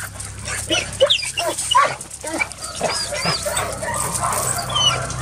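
Dogs barking, with high yips and whining mixed in, many short calls overlapping.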